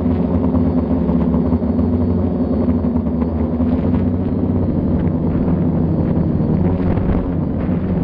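Quadcopter's electric motors and propellers humming steadily, heard from on board as several steady tones, their pitch wavering slightly near the end.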